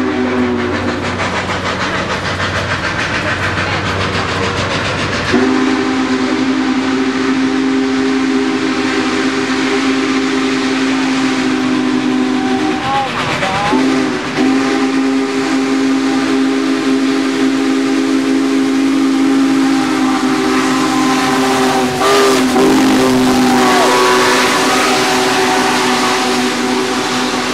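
Union Pacific No. 844's steam whistle blowing a steady chord in long blasts. The whistle breaks off about a second in, comes back after a few seconds, and pauses briefly twice more, over the hiss and rumble of the 4-8-4 steam locomotive and its train running past.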